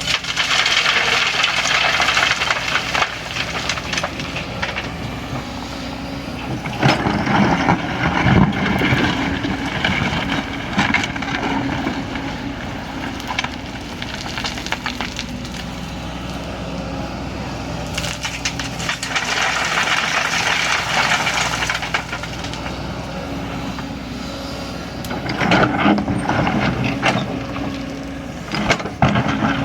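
Kobelco excavator's diesel engine running steadily, with four louder stretches of scraping and knocking from the machine working.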